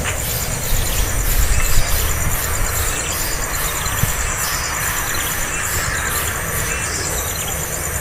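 Outdoor ambience: a steady, high-pitched pulsing drone, as from insects, over a low rumble.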